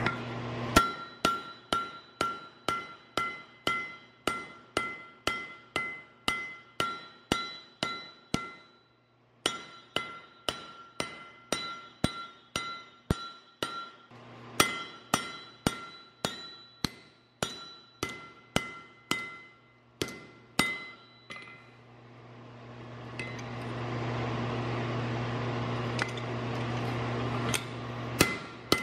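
Hand hammer striking a red-hot double-bit axe head on a steel anvil, about two blows a second in three runs, with the anvil ringing after each blow. The hammering stops a little past the middle and a steady rushing noise with a low hum takes over, broken by a few single strikes near the end.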